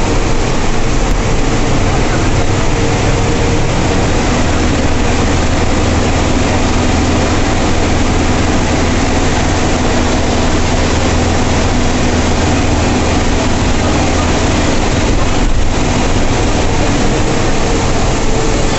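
Ashok Leyland bus's 160 hp turbocharged engine running at steady cruise, heard from the driver's cab as a constant low drone under a steady rush of road noise.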